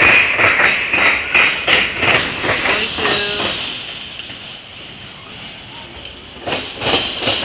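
CSX freight train of autorack cars rolling past, the steel wheels clacking over the rail joints about three times a second. The clacking fades in the middle and picks up again near the end.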